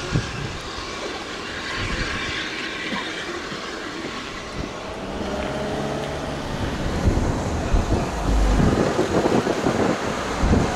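Steam train running, growing louder from about seven seconds in, with heavy uneven low-end sound.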